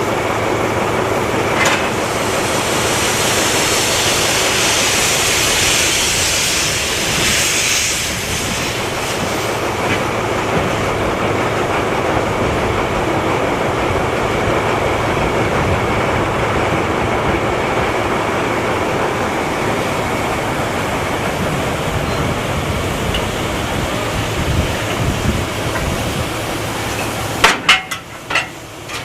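Narrow-gauge steam locomotive running on the depot tracks: a steady rumble, with a hiss over the top for the first several seconds. Several sharp knocks come near the end.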